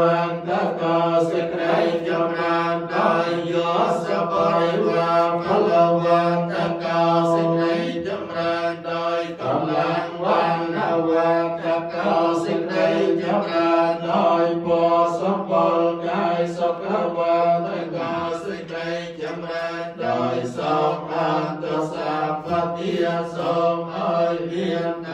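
Theravada Buddhist monks chanting a Pali recitation in unison, amplified through microphones. The chant runs continuously in a steady rhythm on a low, held note, a couple of syllables a second.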